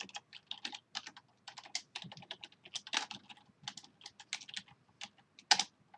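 Typing on a computer keyboard: quick, irregular keystrokes, with one harder key strike near the end.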